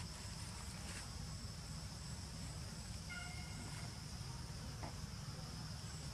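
Insects droning steadily at a high pitch, over a low rumble, with one short pitched call about three seconds in.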